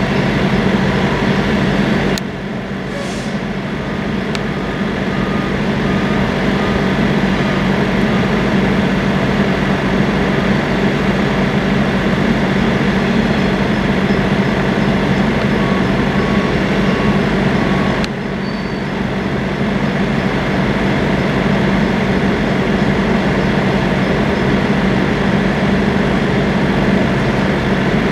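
Freight cars of a long train rolling past, a steady rumble and clatter of steel wheels on the rails. The sound drops off suddenly twice, about two seconds in and a little past the middle, and builds back each time.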